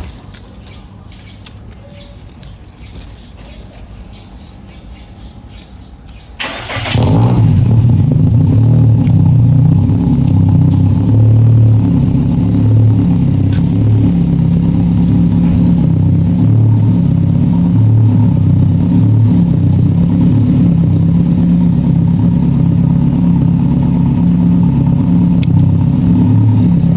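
A motor running with a loud, steady low drone that starts abruptly about six seconds in, after a stretch of faint background.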